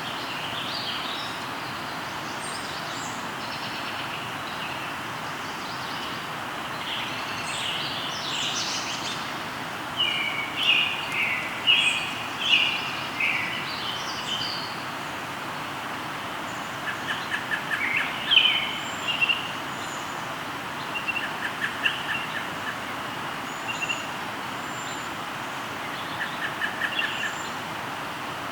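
A river rushing steadily, with several songbirds singing and calling over it: a run of loud, quickly repeated slurred notes about a third of the way in, and short rapid trills now and then after that.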